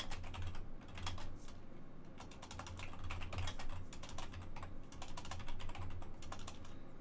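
Typing on a computer keyboard: quick runs of clattering keystrokes with short pauses, dull thumps under them.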